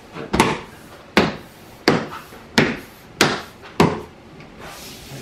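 Plastic frunk trim panel of a Tesla Model Y being pressed and tapped down by hand to snap it onto its clips and alignment pins: six sharp knocks, about two every second and a half.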